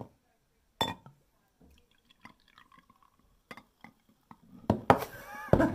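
Carbonated malt drink poured from a glass bottle into a drinking glass: a light glass clink about a second in, faint trickling and fizzing ticks, then a louder pour with splashing near the end.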